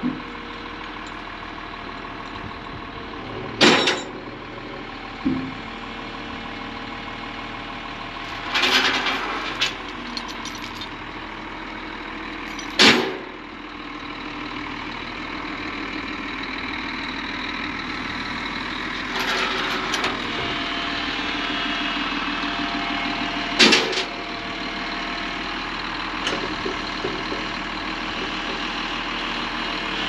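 Volvo tracked excavator's diesel engine running as the machine tracks off a low-loader trailer, growing louder about halfway through. Several short, loud clanks and knocks are spread through it.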